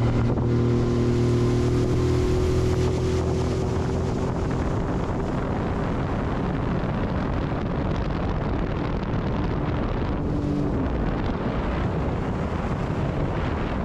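Honda 30 hp four-stroke outboard motor running steadily as the boat moves along, with a steady rush of water and wind on the microphone. The engine hum is clearest in the first few seconds, then the rushing noise dominates.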